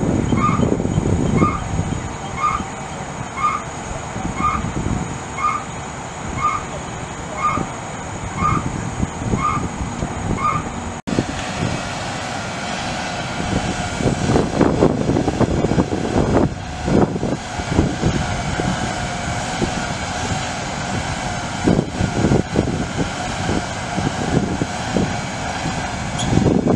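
Fire truck's Cummins ISM turbo diesel running, with a warning beeper sounding about once a second for the first ten seconds or so. The sound changes abruptly about eleven seconds in, after which the engine runs on steadily with a sustained whine over it.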